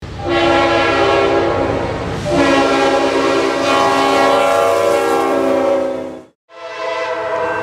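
Diesel freight locomotive's multi-chime air horn sounding two long blasts, the first about two seconds, the second about four. After a brief drop-out to silence a horn sounds again, quieter.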